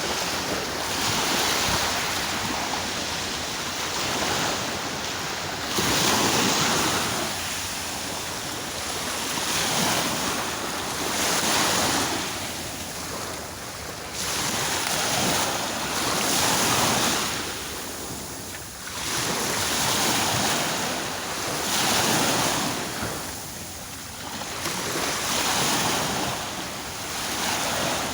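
Ocean waves breaking and washing on a shore, the surf swelling and receding in repeated surges every two to three seconds.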